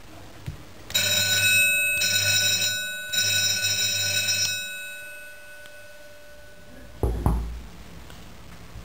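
Electric school bell ringing in three bursts with short breaks, switched from a wall switch, stopping about four and a half seconds in. A dull thump near the end.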